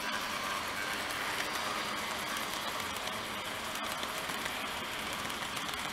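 TOMIX N-scale C55 steam locomotive model running past with its passenger cars: the steady whirring and rolling noise of its motor and wheels on the track, a little louder as the locomotive comes closest near the start.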